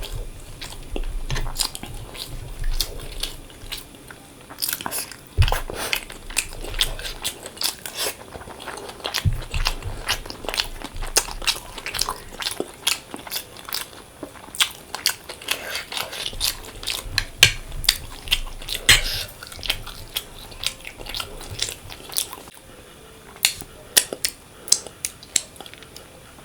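Close-miked chewing and biting: a person eating, with many irregular sharp mouth clicks and smacks, several a second, and a few low thuds.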